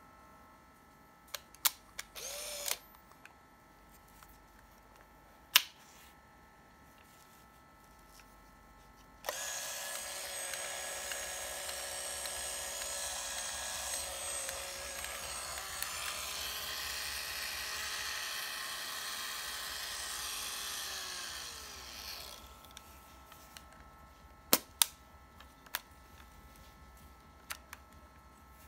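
Konica POP AF-200 compact film camera: a few sharp clicks and a brief motor whir, then about nine seconds in its film motor starts a steady whine that lasts about 13 seconds and falls in pitch as it winds down. This is the motor rewinding the film into its cartridge. Sharp clicks follow near the end as the camera back is opened.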